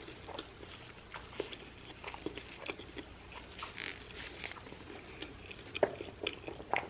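Close-miked chewing and biting of a shrimp taco: many short, scattered wet mouth clicks and soft crunches, a few sharper ones near the end.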